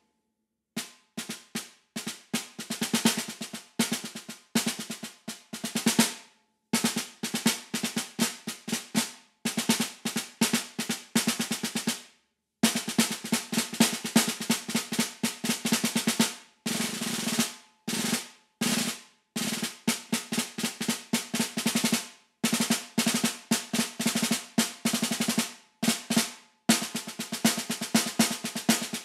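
Snare drum played solo with wooden sticks: phrases of dense, rapid strokes broken by short rests, about half a dozen times.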